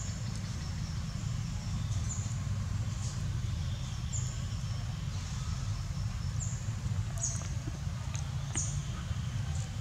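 Outdoor ambience: a steady low rumble with short, high, slightly falling chirps repeating about once a second.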